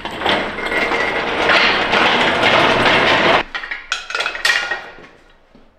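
Steel engine hoist (cherry picker) being dragged across a concrete shop floor, its casters and frame rattling for about three and a half seconds. It stops abruptly, followed by a few separate metal clinks and clanks as the hoist is set in place.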